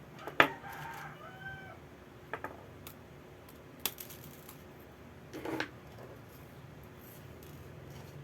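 A sharp click, then a rooster crowing briefly for about a second; a few more small clicks and taps follow over a low steady hum.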